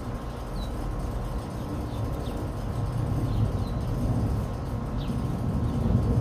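Outdoor background: a steady low rumble, with a few faint, short bird chirps scattered through it.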